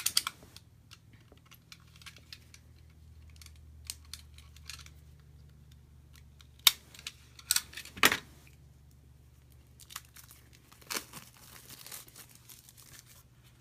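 Plastic packaging crinkling and tearing as game components are unwrapped by hand, in scattered rustles and clicks, the loudest about seven to eight seconds in.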